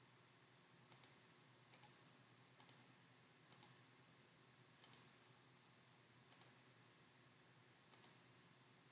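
Computer mouse clicking: seven quick double clicks, spaced unevenly over about seven seconds, against a near-silent room.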